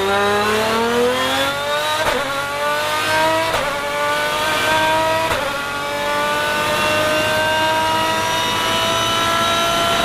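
Lamborghini Murcielago R-SV GT1's 6.5-litre V12 under hard acceleration, heard from inside the cockpit. It climbs in revs and is cut by three quick upshifts, about 2, 3.5 and 5 seconds in, each a brief crack. After the third upshift it pulls on in a long, slow rise in pitch.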